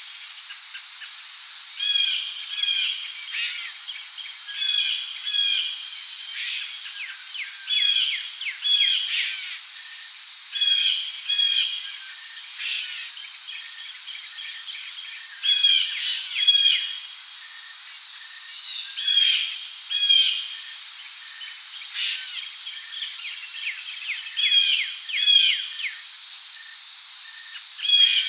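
Steady high-pitched insect drone, with a bird repeating short chirping phrases, often in pairs, every second or two.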